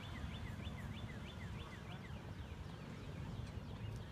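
A bird calling in a rapid series of short, high chirps, about three a second, that fade out about two and a half seconds in, over a low outdoor rumble.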